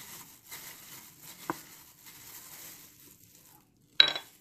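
Faint rustling and light clicks of chopped spring onions and grated carrot settling in a mixing bowl, then one sharp, ringing clink about four seconds in.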